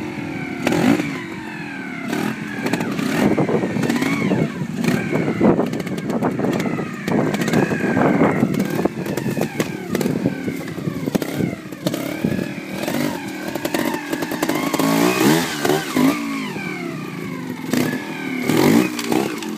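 Trials motorcycle engine revving in quick blips, its pitch rising and falling again and again as the bike is worked over boulders, with scattered sharp knocks and clatter.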